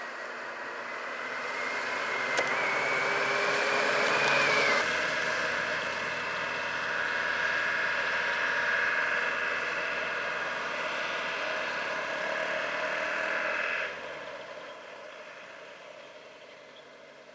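Vehicle engines running and idling on the road. One engine note rises over the first few seconds, with a sharp click about two seconds in. The steady engine sound stops abruptly about 14 seconds in, and a fainter hum remains.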